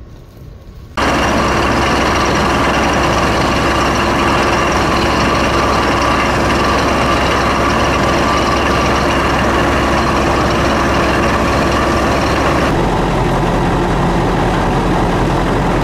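A drilling rig's engine running steadily under load while the drill rod turns into the ground, coming in suddenly about a second in. The hum shifts slightly in tone near the end.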